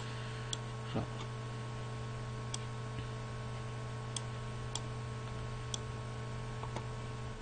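A handful of sharp computer-mouse clicks at irregular intervals, over a steady low electrical hum.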